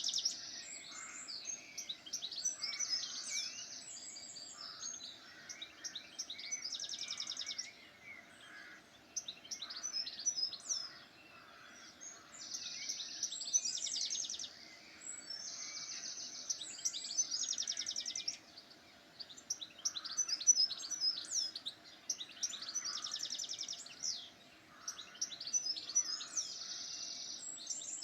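Songbirds singing: phrases of rapid high trills and quick chirps, each a second or two long with short pauses between, overlapping from more than one bird.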